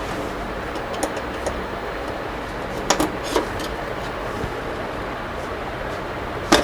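A few sharp plastic clicks and knocks, about three seconds in and a louder one near the end, over steady background noise: the locking clips of an LED TV panel frame being unlatched as the panel is opened.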